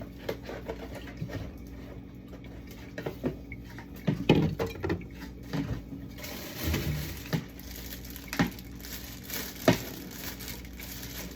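Jars, bottles and food containers being handled while a refrigerator is emptied: scattered light knocks, taps and rustles, with a few sharper clacks as items are set down.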